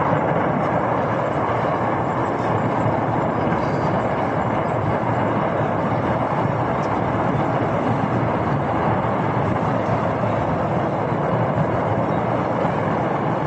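A steady, even rushing noise with no distinct bangs, blasts or voices.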